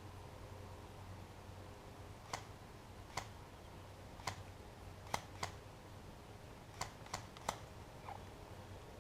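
About nine short, sharp clicks at irregular intervals over a low steady hum: scattered single airsoft shots or BB hits.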